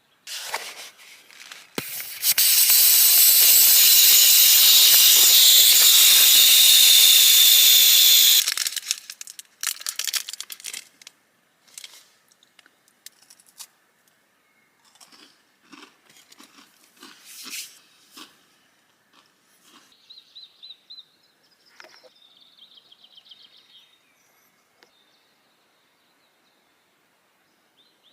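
A loud, steady hiss lasting about six seconds. Crinkling and crackling handling noises follow, then a few faint trilling bird chirps near the end.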